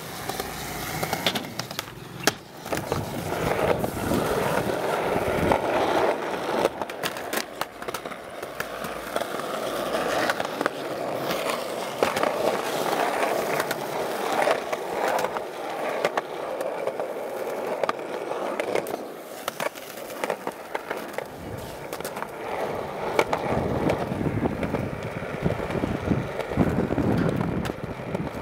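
Skateboard wheels rolling over concrete in a continuous rumble, with sharp knocks from the board now and then.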